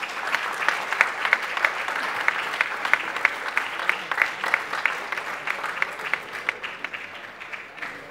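Audience applauding: dense, steady hand-clapping that thins and fades near the end.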